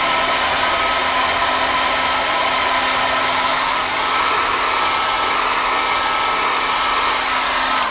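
Hairdryer blowing hot air steadily, a loud whoosh with a motor hum and whine, drying a sewing machine's mechanism after steam cleaning; it cuts off suddenly at the end.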